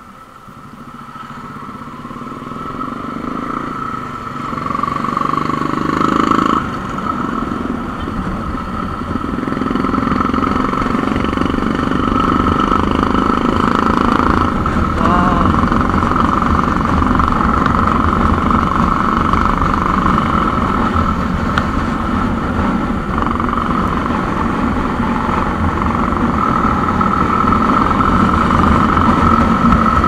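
Suzuki motorcycle riding at road speed: engine running under wind and road noise, heard from the rider's position. It builds up over the first several seconds, dips suddenly about six seconds in, then holds steady.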